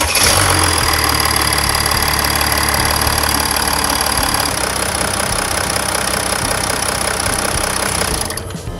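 Mercedes-Benz E320 CDI diesel engine idling steadily just after starting, run after an oil change to circulate the fresh oil. It drops away near the end.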